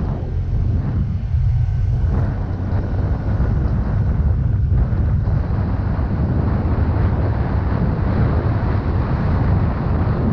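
Wind buffeting the microphone on a moving Yamaha Mio Gravis scooter, with the scooter's engine and road noise underneath; a steady, heavy low rumble.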